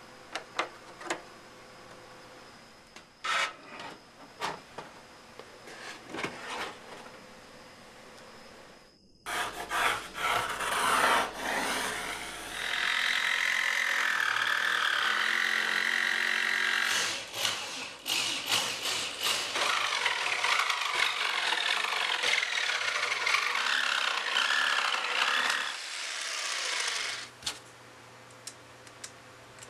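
An electric jigsaw cutting a wooden board, loud and steady for about fourteen seconds before stopping near the end. It is preceded by faint clicks of small parts being handled and followed by light taps of the cut wooden pieces.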